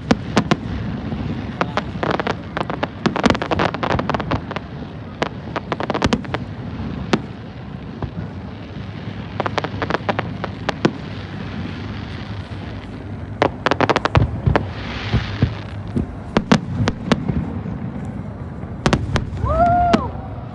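Aerial fireworks display: a continuous run of sharp bangs and crackles, often in rapid clusters, over a steady background din. A brief hiss about fifteen seconds in.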